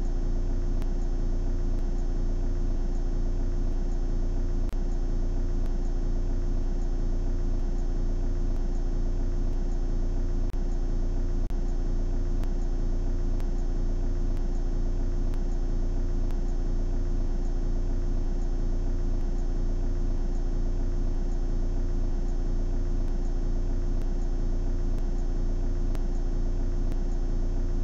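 Car engine idling, a steady low hum with a faint regular pulse in the rumble, heard inside the cabin.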